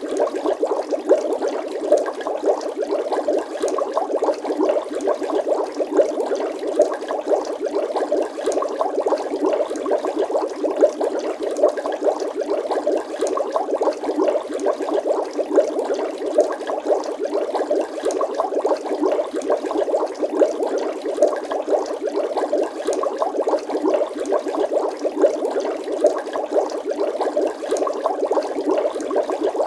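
Water bubbling steadily: a dense, continuous stream of small bubbles popping and gurgling, even throughout with frequent small pops.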